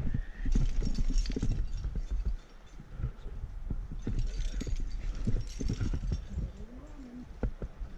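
Irregular scuffs, taps and rustles of a climber's hands, jacket and rope against sandstone, picked up close by a body-worn action camera, with a low rumble of handling noise under them.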